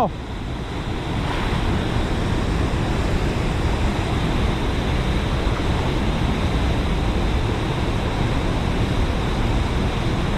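Steady rushing of water from a dam spillway, mixed with wind buffeting the microphone.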